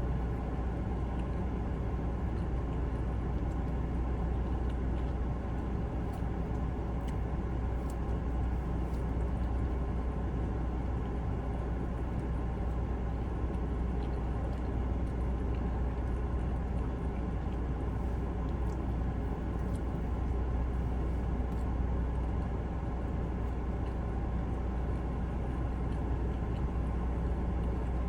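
Air conditioning running: a steady low hum with an even rush of air, with a few faint clicks over it.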